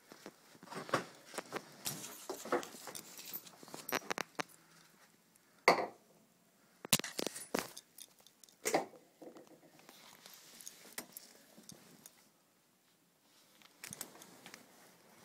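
Handling noise from a handheld phone camera being carried and swung about: scattered clicks, rattles and rustles, with a sharp knock a little under six seconds in and a few more knocks around seven and nine seconds in.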